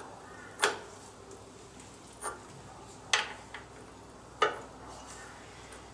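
Four sharp metallic clinks about a second apart, from a 1 3/16-inch socket and wrench being worked on the steel hollow bolt of a tractor's hydraulic oil strainer.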